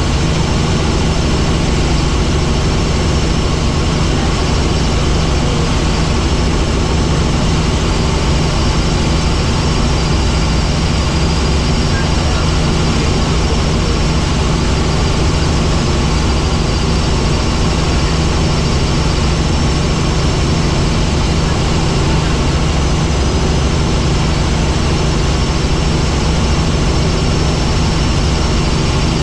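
Helicopter in flight, its engine and rotor running with a loud, unchanging drone and a few steady higher tones over it.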